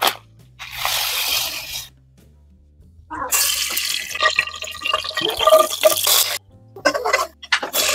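Soft background music under close-up kitchen sounds: a brief crinkle and rustle of a plastic rice packet, then melted ghee poured from a steel cup into a pan, with a liquid pouring and splashing sound for about three seconds.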